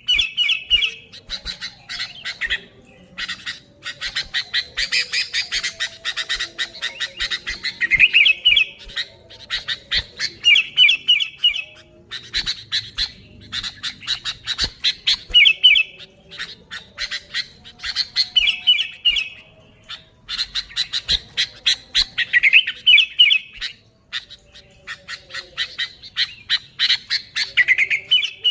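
Sooty-headed bulbul (kutilang) calling continuously and excitedly: rapid runs of chattering notes in phrases a couple of seconds apart, many ending in a quick rising flourish.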